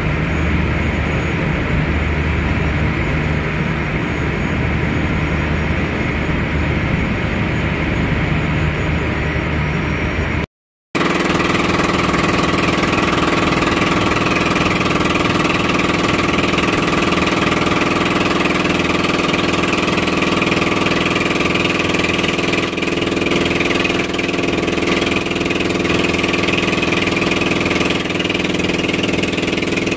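Boat engine running steadily under way, with rushing noise over it. About ten seconds in, the sound cuts out for a moment; it then comes back as a steadier, more even engine hum.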